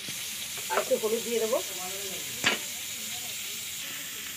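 Cauliflower florets frying in hot oil in a metal wok, a steady sizzle throughout, with one sharp knock about two and a half seconds in.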